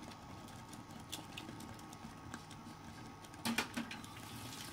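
A pot of instant oats simmering gently, a faint low bubbling patter, with two light knocks close together about three and a half seconds in.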